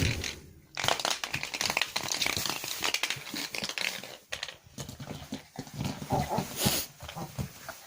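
A chihuahua puppy worrying a toy that it cannot bite: irregular scuffling and crinkling, with small dog noises mixed in.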